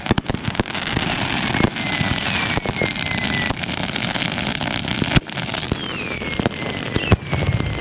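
Consumer fireworks going off: dense crackling and popping with sharp bangs, the loudest about five seconds in. Whistles glide down in pitch twice, around two seconds in and near the end.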